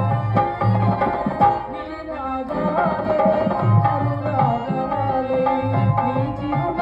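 Tabla and harmonium playing stage-drama accompaniment, steady drum strokes under held harmonium notes, with a voice singing a drawn-out, wavering melody from about two and a half seconds in.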